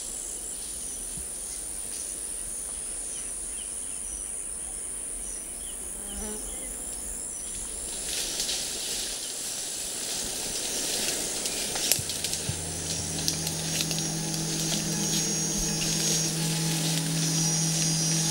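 Tropical forest ambience of insects buzzing in a steady high-pitched drone, with scattered rustling and clicks from about eight seconds in. About twelve seconds in, low held notes of background music come in.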